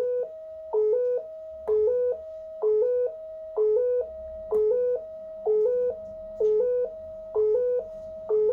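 Breadboard synthesizer sequencer circuit bleeping out a short loop of electronic tones: a louder pair of low stepping pitches, then a softer, slightly higher held tone, repeating about once a second. It is a horrible noise.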